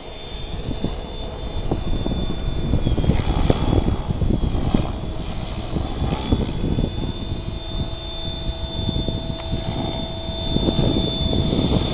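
Compass 6HV 600-size 12-cell electric RC helicopter in flight: a steady high whine from the motor and drive gears over the whoosh of the rotor blades. It grows louder about two seconds in and again near the end.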